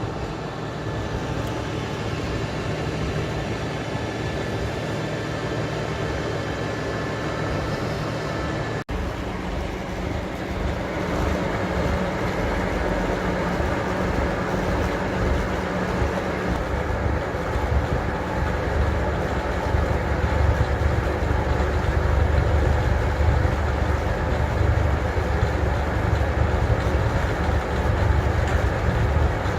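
Old slurry tower mixer and the engine driving it, running steadily with a deep mechanical drone. There is a brief break about nine seconds in. The low rumble grows heavier and rougher through the second half, as if the mixer is working under load.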